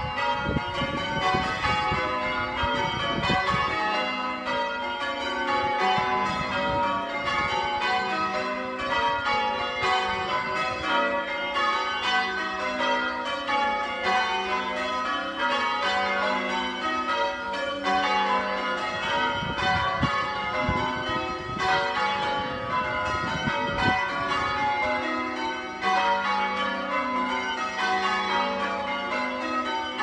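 Change ringing on a ring of eight church bells, tenor 11 cwt in F#, heard from outside the tower: a continuous stream of bell strokes rolling through the changes. The bells come from different founders, and they are oddstruck, which makes them hard to strike evenly.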